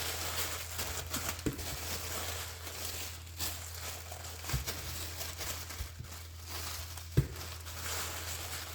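Packaging being crinkled and rustled as a craft kit is wrapped up, with a few light knocks, over a steady low hum.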